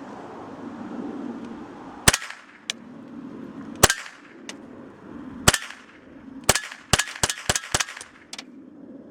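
Savage 64 semi-automatic .22 LR rifle firing about nine shots of high-velocity .22 rounds: three shots spaced out over a few seconds, then a quick string of about six. Fainter sharp clicks fall between some of the shots.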